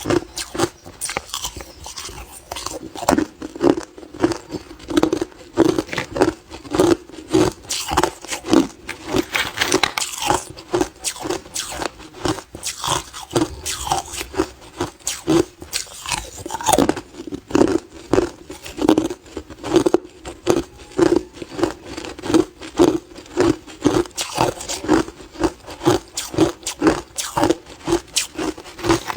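Hard clear ice being bitten and chewed close to the microphone: a continuous run of sharp, brittle crunches and cracks, several a second.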